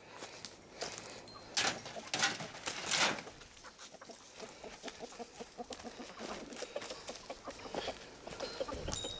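Flock of domestic chickens clucking as they are let out of their coop after weeks shut in. Clucks come thick and fast from about halfway in, after a few short scraping noises in the first three seconds.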